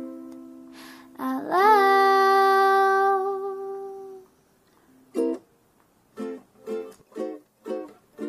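Background song: a sung note slides up and is held for about three seconds, then fades. After a short pause, sparse plucked string chords start.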